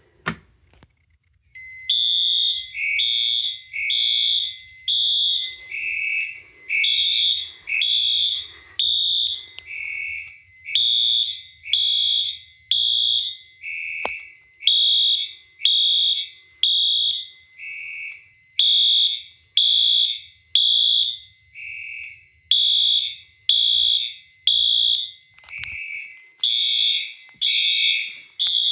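Fire alarm horns sounding together in alarm, set off from a pull station, starting about a second and a half in. Loud tone pulses at two pitches overlap out of step, repeating about once a second.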